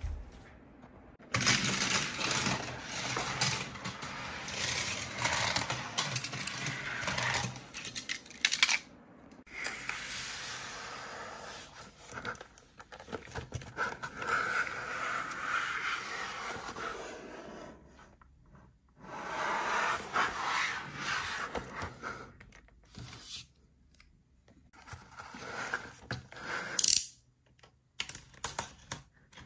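Hands handling a cardboard-and-plastic blister pack of small toy cars: tapping, clicking, scraping and rustling on the packaging, with a box cutter scoring the cardboard near the end.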